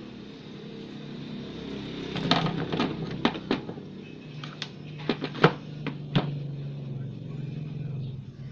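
Clatter of small electronic parts being rummaged through while hunting for a replacement capacitor: a run of sharp clicks and knocks from about two seconds in to past the six-second mark, over a steady low hum.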